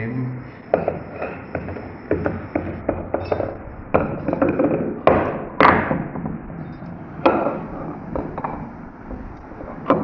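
Knocks, clunks and short scrapes of metal ceiling-fan motor housings being handled, lifted and set against each other, with the loudest knocks about four, five and seven seconds in and again near the end.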